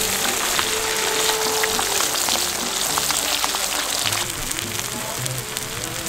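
A whole fish deep-frying in a wok of hot oil, the oil sizzling and crackling steadily with many small pops.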